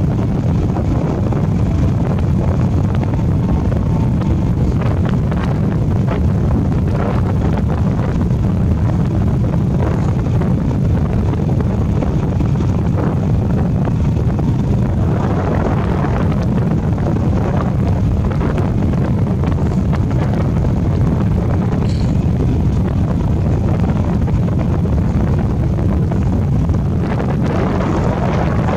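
Wind buffeting the microphone of a camera on a moving motorbike, mixed with the bike's engine and road noise: a loud, steady low rumble.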